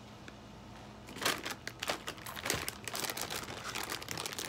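Crunchy Takis rolled tortilla chips being chewed close to the microphone: a run of sharp crunches at a regular chewing pace, starting about a second in.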